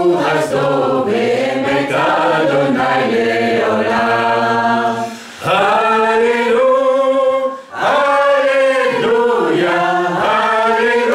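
Voices singing a slow worship song in long held phrases, with brief breaths between phrases about five and eight seconds in.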